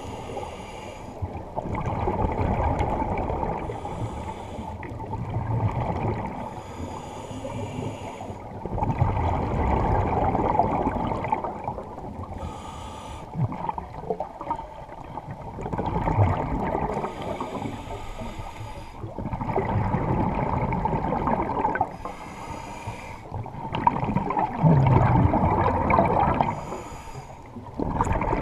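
Scuba diver breathing through a regulator underwater: a hissing inhalation alternating with a bubbling, gurgling exhalation, about seven breaths in a steady rhythm of one every four seconds or so.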